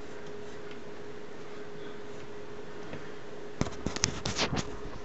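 Handling noise from a vintage Superior Instruments signal generator: a quick run of clicks and knocks from hands on its case and dial, starting about three and a half seconds in, over a steady faint hiss and a thin steady hum.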